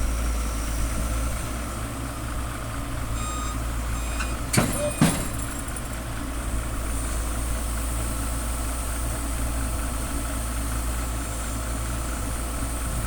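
Excavator's diesel engine running steadily, with a short beeping about three seconds in and then two sharp knocks half a second apart.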